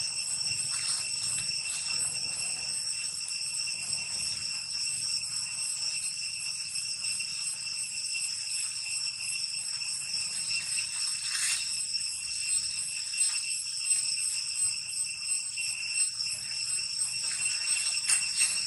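Steady, unbroken high-pitched insect drone with a couple of higher overtones above it. Faint rustles of dry leaf litter now and then.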